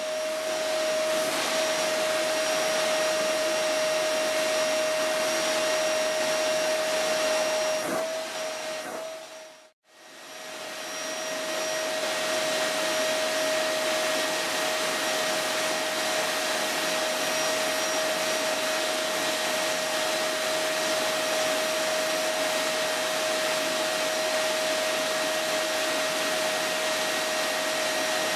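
Steady rushing noise with a constant mid-pitched hum, like a running vacuum cleaner or hair dryer motor. It dips out briefly and comes back about ten seconds in.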